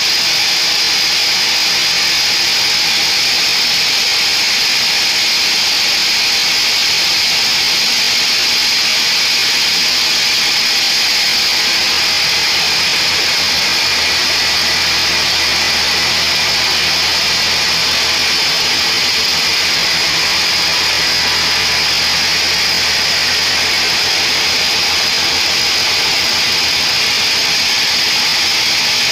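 Band sawmill running and its blade cutting lengthwise through a mahogany log: a loud, steady, high-pitched hiss and whine. A low hum sits under it for a while in the middle.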